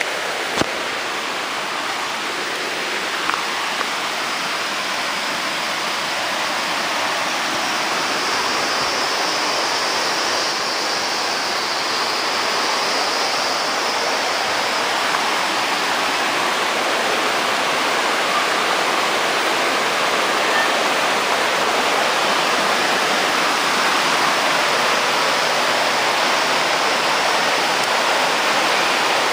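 Steady rush of flowing water, continuous and even, growing slightly louder a few seconds in, with a couple of small knocks near the start.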